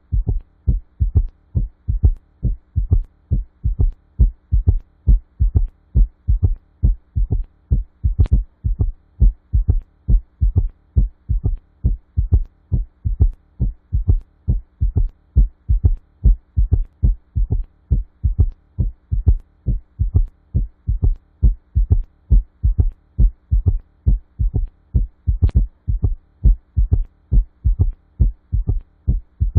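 Heart sounds with an S3 gallop: low thuds repeating steadily, a third heart sound after the second giving a galloping three-beat rhythm, a sign associated with heart failure.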